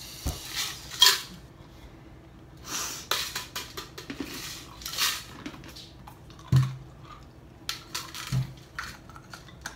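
Clinks and knocks of a stainless steel tumbler and its plastic lid and straw being handled and set down on a table, the loudest about a second in, with two dull thumps later on.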